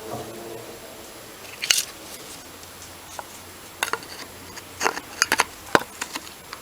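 Small metal clicks and clinks from an old Amal carburettor's parts being handled and taken apart, about half a dozen separate sharp clicks, bunched together in the second half.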